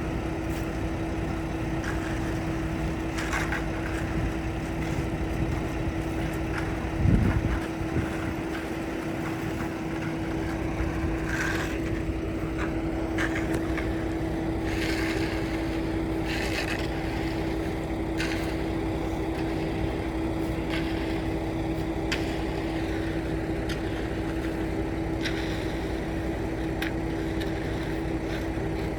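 An engine running steadily at a constant pitch, with a low thump about seven seconds in and scattered short clicks and scrapes through the rest.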